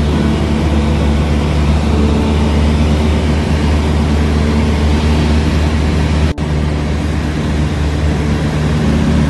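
Steady drone of a Cessna 172's piston engine and propeller heard inside the cabin in level flight, with a momentary dropout about six seconds in.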